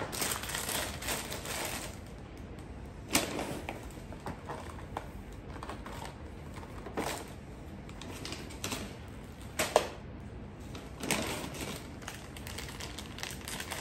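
Groceries being handled and unpacked: plastic packaging and bags rustling and crinkling in irregular bursts, with a few sharp clicks and knocks as items are picked up and set down, the sharpest near the end.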